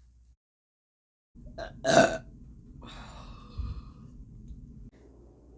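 A woman burps once, loudly, about two seconds in, right after a moment of dead silence. A quieter, longer sound trails after it for about two seconds.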